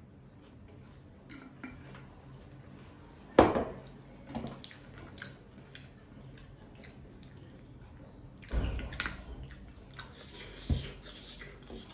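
Sauce bottles being handled, shaken and squirted over a bowl of noodles, with scattered clicks and sharp knocks of bottles on a wooden table. The loudest knock comes about three and a half seconds in, and a cluster of knocks and a dull thump follows near nine seconds.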